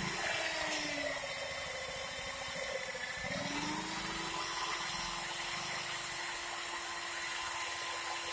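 Electric concrete rotary hammer running in a chiseling test. Its motor whine drops in pitch about a second in, climbs back a little after three seconds, then holds steady.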